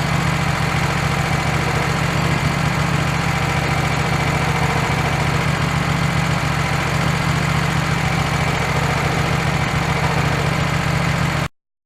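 Engine of a WoodMizer LT15 bandsaw mill running steadily; the sound cuts off abruptly near the end.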